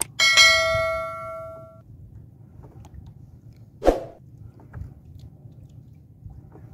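Mouse-click sound effect followed by a notification bell chime ringing out and fading over about a second and a half, from a subscribe-button animation. A single sharp knock about four seconds in.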